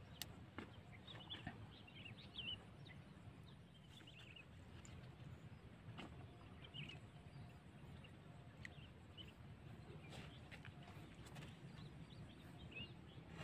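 Near silence: faint outdoor ambience with a steady low rumble and scattered short, high chirps, plus a few faint clicks in the first seconds.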